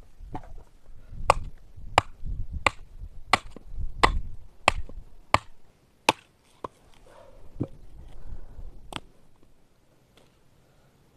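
Hatchet splitting firewood on a wooden chopping block: a quick run of sharp chops about one and a half a second for the first five seconds, then a few slower, spaced-out strikes.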